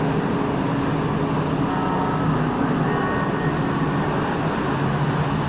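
Steady hum and rumble of a Montreal metro train standing at a station, heard from inside the car, with a low drone running throughout.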